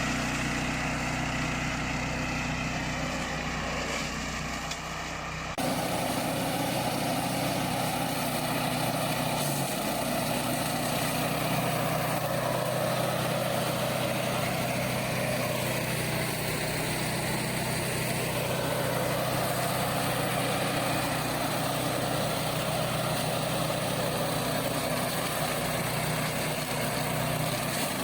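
Remote-control flail mower running steadily, its engine and flail rotor making a continuous mechanical drone. The sound changes abruptly about five and a half seconds in, then carries on steady.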